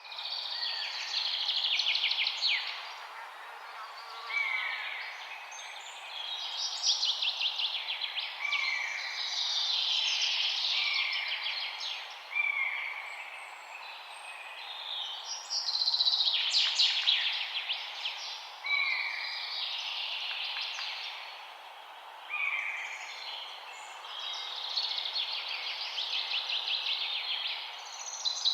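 Songbirds singing, phrase after phrase: fast, high trills and short downward-sliding whistled notes that come every couple of seconds, with more than one bird's song overlapping.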